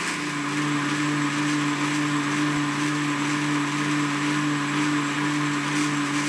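Electric countertop blender motor running steadily, blending a pale liquid garlic mixture in its glass jug; its hum steps down slightly in pitch just after the start and then holds even.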